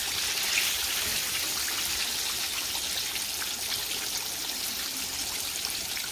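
Breaded whole catfish deep-frying in hot oil in a saucepan: a steady sizzle full of fine crackles.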